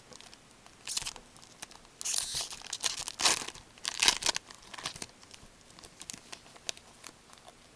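Wrapper of a 2013-14 Upper Deck Artifacts hockey card pack being torn open and crumpled by gloved hands. The tearing and rustling come in several bursts, loudest from about two to four and a half seconds in, then die down to light handling.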